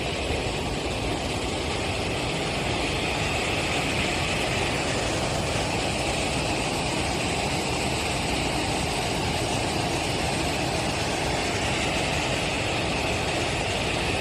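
Water pouring over a low concrete river weir: a steady, even rush.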